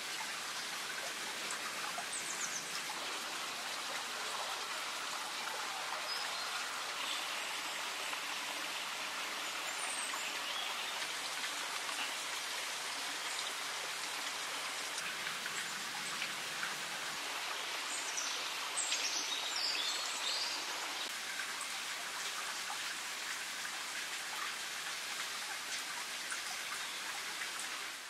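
Steady outdoor hiss, like a constant wash of water or wind noise, with a few short high bird chirps, most of them in a cluster a little past the middle.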